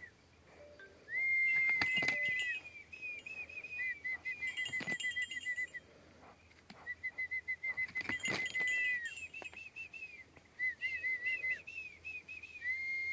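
High-pitched whistling at one steady pitch: runs of quick chirps alternating with long held notes, a new long note starting near the end, with a few sharp clicks mixed in.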